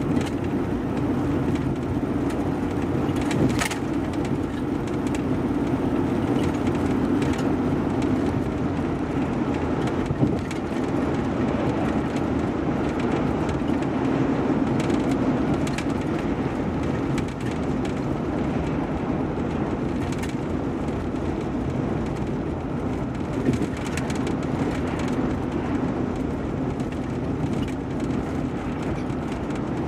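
Steady road and tyre noise of a car driving over a bridge deck, with a few short knocks about 3.5, 10 and 23 seconds in.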